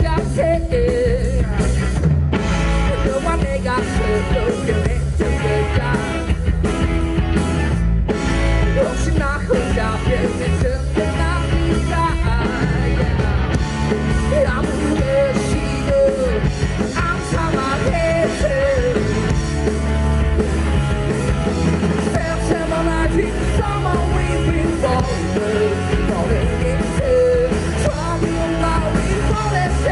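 Live rock band playing: a distorted electric guitar and a drum kit, with a male singer's vocals over them.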